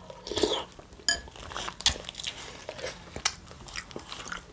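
A person chewing and biting food close to the microphone, with irregular sharp crunches.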